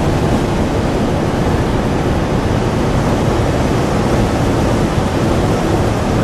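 Steady rush of wind and road noise heard from inside a 1950 Buick Roadmaster convertible cruising at road speed, even and unbroken.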